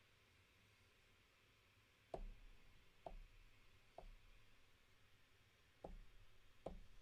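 Five faint, sharp knocks with a short low thud under each, at uneven gaps of about one to two seconds.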